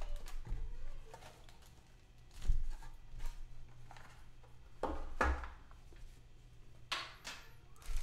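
Scattered handling sounds of sports card packs and cards being handled and opened: a few dull knocks and brief crinkling rustles, with the loudest rustles near the end.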